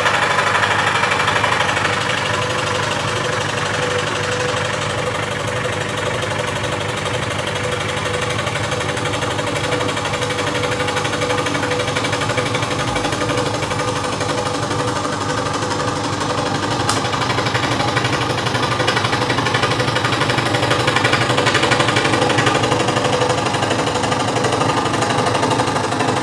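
Einhell TC-SS 405 E electric scroll saw running at a low stroke speed, its spiral blade moving rapidly up and down as it cuts through plywood: a steady, fast chatter.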